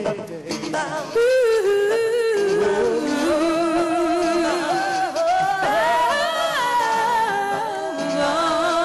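Live pop singing with music: held, wavering sung notes, the level stepping up about a second in.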